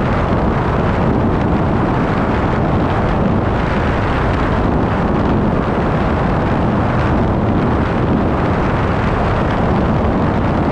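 Steady road and wind noise of a vehicle cruising at highway speed, with wind buffeting the microphone.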